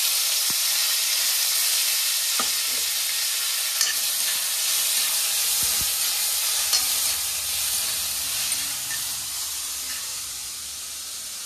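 Chopped tomatoes and onions sizzling hard in hot oil in a kadai, stirred with a metal spoon that clinks against the pan a few times. The sizzle eases off gradually near the end as the pan cools under the wet tomatoes.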